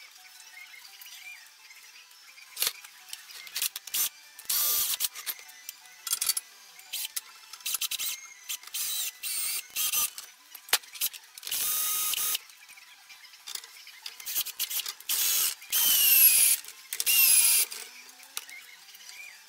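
A power tool run in short bursts, about half a dozen over the stretch, its motor pitch rising and falling within some bursts. Scattered clicks and knocks of tool work come between the bursts.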